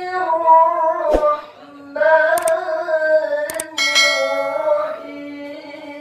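A male qari reciting the Quran into a microphone in the ornamented, melodic qira'ah style, holding long notes that slide between pitches. Sharp clicks about two and a half and three and a half seconds in are followed by a bright bell chime that rings and fades, the sound effect of a subscribe-button animation laid over the recitation.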